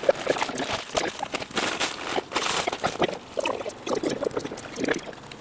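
Dry plaster of Paris poured from a paper sack into water in a galvanized steel bucket, then hands churning and sloshing the wet plaster-and-sand mix: an irregular wet swishing and splattering.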